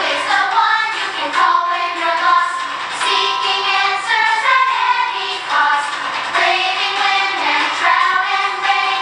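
Recorded song from a children's musical: young voices singing a melody over instrumental accompaniment.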